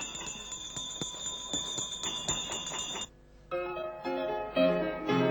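A small bell rung quickly and steadily, like a tram's bell, for about three seconds. It stops, and piano music starts about half a second later.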